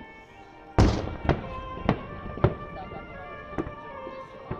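Aerial firework shells bursting: one loud boom about a second in, then five sharper bangs spaced half a second to a second apart.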